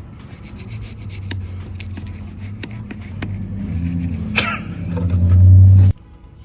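Rubbing and knocking close to the microphone, with scattered clicks, growing louder toward the end and then cutting off suddenly just before the end.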